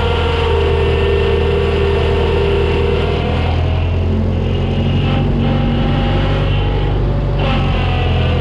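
New Holland L775 skid steer's diesel engine running steadily under work, with a whining tone that changes pitch several times.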